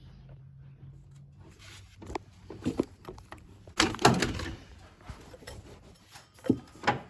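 Ratchet and metal tools knocking and clanking in an engine bay as the drive belt is taken off the power steering pulley: a series of separate knocks, the loudest about four seconds in and two more near the end.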